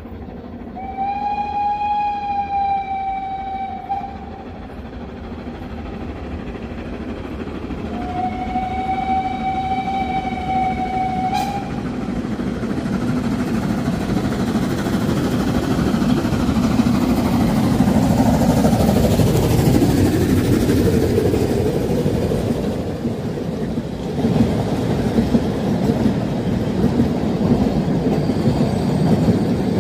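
Steam whistle of a narrow-gauge steam locomotive, the Saxon class I K No. 54, giving two long blasts of about three seconds each as it nears an ungated level crossing. The train's running noise then builds and the locomotive and coaches roll past on the rails.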